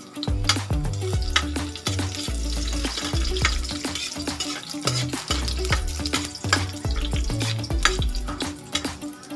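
Sliced garlic sizzling in hot oil in a wok while a metal spatula stirs it, with short scrapes and taps of metal on the pan. A background music track with a stepping bass line plays under it.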